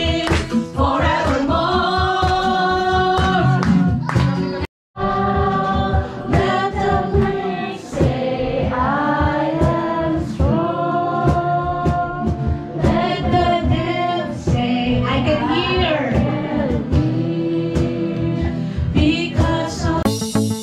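Voices singing a Christian worship song together over a steady beat. The sound cuts out completely for a moment about five seconds in.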